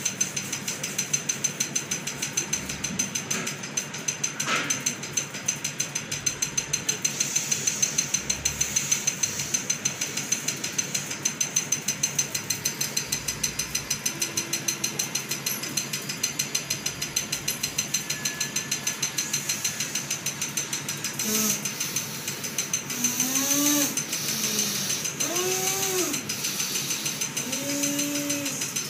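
A fast, even pulsing runs throughout. In the last several seconds a person lets out several drawn-out moans, each rising and then falling in pitch.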